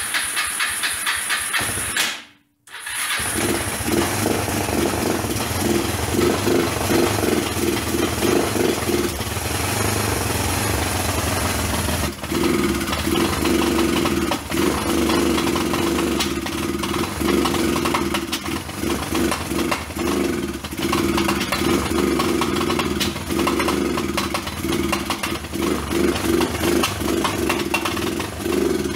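Kawasaki four-wheeler's four-stroke engine running on its own just after its first start following a home-built top-end rebuild, with the sound cutting out abruptly for a moment about two seconds in. The owner suspects the engine's timing is off.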